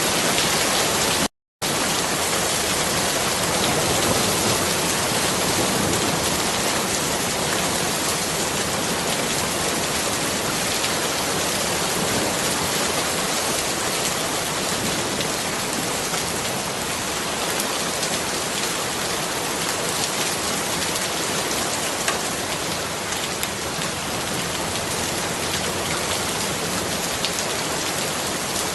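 Steady rain falling, a dense even hiss of drops with no let-up. About a second and a half in, the sound cuts out to total silence for about a third of a second.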